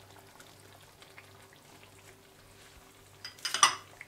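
Chicken pieces frying in oil in a wok with ginger and garlic paste just added: a faint steady sizzle with scattered small crackles over a steady low hum. A short loud clatter comes about three and a half seconds in.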